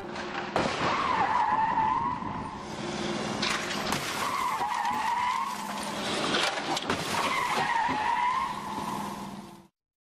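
Car tyres squealing in a skid, three wavering squeals of a second or two each with a few sharp knocks among them; the sound cuts off suddenly near the end.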